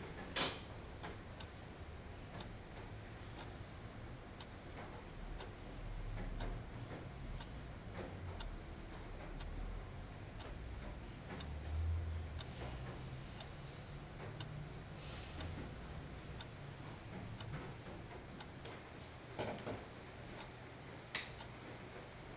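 Wind-up alarm clock ticking steadily. A few louder knocks stand out among the ticks: a sharp one just after the start, a low thump midway, and two sharp ones near the end.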